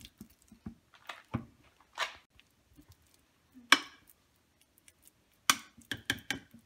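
A spoon scraping and tapping against a glass baking dish as mashed sweet plantain is pressed and spread into a thin layer. The scrapes and taps come irregularly, with the loudest a little under four seconds in and a quick run of them near the end.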